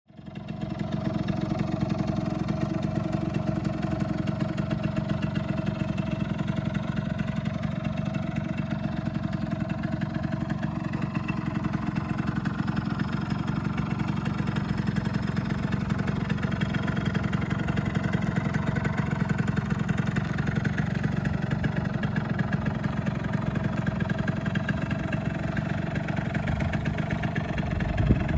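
A 1989 Yamaha Zuma 'prebug' scooter's two-stroke engine running steadily at idle, with a fast, even pulse.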